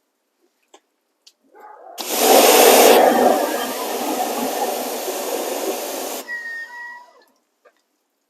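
Pressure washer spray jet blasting for about four seconds, loudest in its first second, then cutting off sharply as the trigger is released; the spray is aimed at a wasp.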